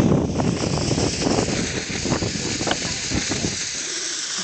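Ground fountain firework spraying sparks: a steady rushing hiss with dense crackling, easing a little after about two seconds.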